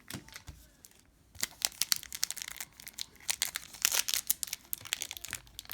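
A trading-card pack's wrapper crinkling and tearing as it is opened and the cards are handled. Scattered sharp crackles start about a second and a half in and are busiest near the middle.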